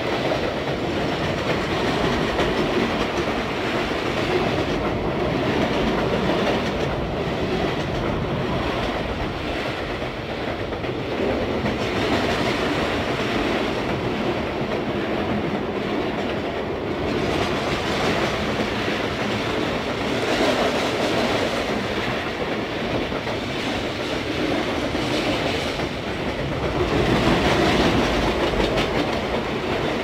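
A train rolling past, a steady run of cars with the wheels clicking over rail joints, growing louder near the end.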